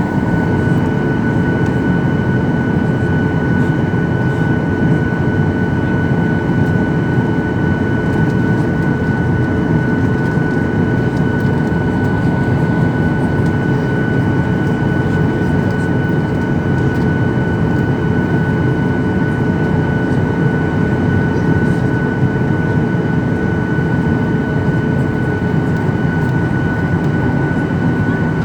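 Boeing 737-800's CFM56 jet engines heard from inside the cabin, running steadily at high power: a dense rushing noise with a steady high whine from the fans.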